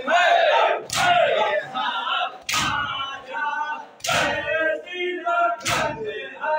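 A group of men chanting a Muharram noha together, punctuated by loud unison chest-beats (matam) about every one and a half seconds, four strikes in all.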